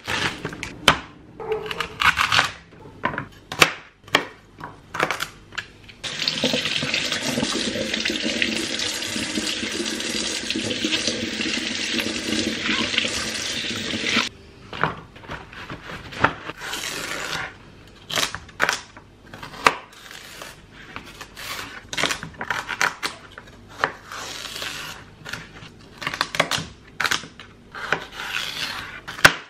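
Plastic produce packaging rustling and crinkling as it is opened. Then a kitchen tap runs steadily for about eight seconds while celery is rinsed, and stops abruptly. After that a knife chops celery stalks on a cutting board in a long run of quick, sharp knocks.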